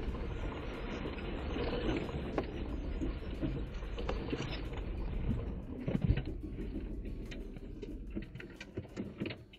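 Jeep Wrangler JK crawling slowly over a rough dirt trail, heard from inside the cab: a steady low engine and tyre rumble with scattered clicks, knocks and rattles. The rumble fades near the end as the Jeep slows almost to a stop.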